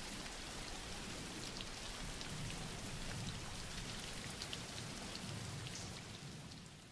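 Steady rain falling, with scattered small drop ticks, fading out near the end.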